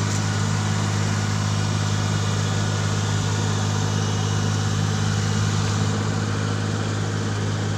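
Kubota DC-35 combine harvester's diesel engine running at a steady speed, an even low hum with no change in pitch or level.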